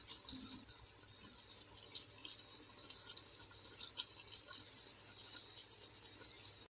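Faint, steady sizzling hiss of chicken pieces cooking in a pan, with a few small pops.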